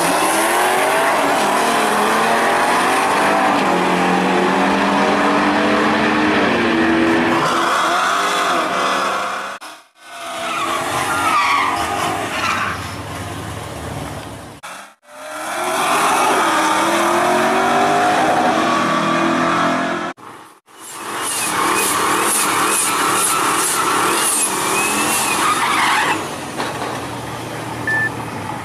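Drag-racing cars at full throttle: engines revving hard and rising in pitch, with tyres squealing through smoky burnouts. It comes as several short clips with abrupt cuts between them.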